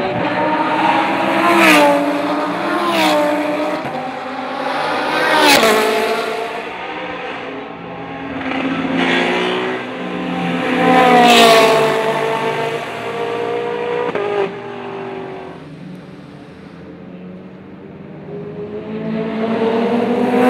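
Race cars passing one after another at high speed, about six in all, each engine note rising as it comes in and dropping in pitch as it goes by. A quieter lull near the end before the next car comes through.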